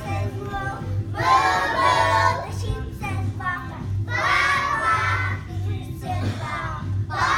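Young children singing together in three loud phrases, roughly three seconds apart, over a steady low hum.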